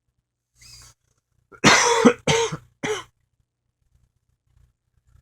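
A person coughing three times in quick succession after a short breath in; the first cough is the longest and loudest.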